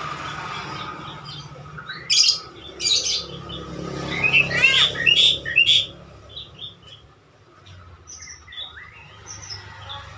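Javan myna calling: several loud, harsh notes and a run of quick chirps and whistles from about two to six seconds in, then softer scattered chirps.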